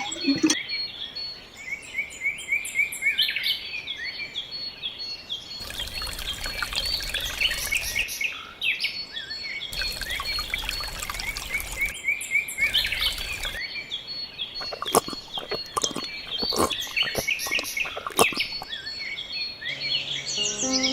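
Birds chirping and twittering throughout, with short rapid calls. Three stretches of hissing noise lasting a second or more each cut across the birdsong, and a run of sharp clicks and taps follows in the second half.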